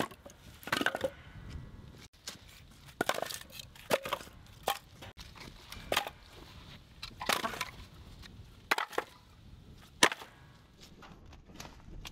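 Split firewood logs being set down and knocked against one another, about ten sharp wooden knocks spread unevenly over several seconds.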